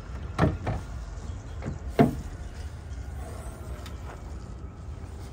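A Kia Soul's hood being popped and raised: a few short clunks and clicks from the hood latch and hood, the sharpest and loudest about two seconds in.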